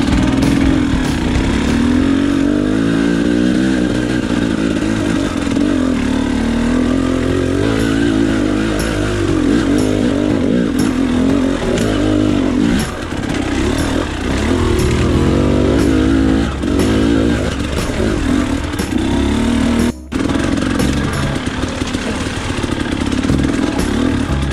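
KTM XC-W enduro dirt bike engine revving up and down with the throttle as it is ridden, pitch rising and falling every second or two. Near the end the sound cuts out for a split second.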